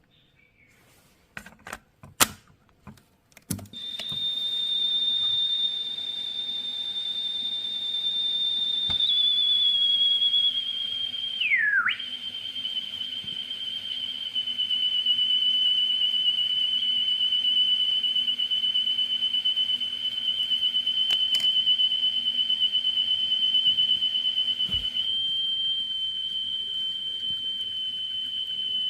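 A few clicks, then a loud steady single-pitched tone near 3 kHz played back by the Hitachi cassette player, typical of a speed-test tape. About eight seconds after it starts, the tone dips sharply in pitch and comes back, then holds slightly lower.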